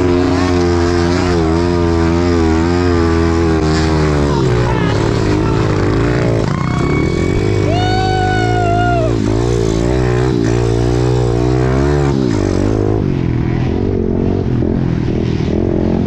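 Dirt bike engine running hard, its pitch wavering up and down as the throttle opens and closes.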